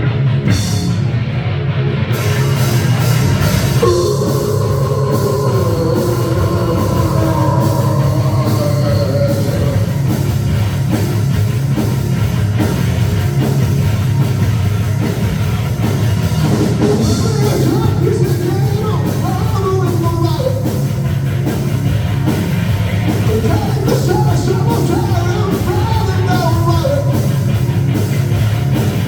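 A live rock band playing a loud, driving hard-rock song, with distorted electric guitars over a drum kit.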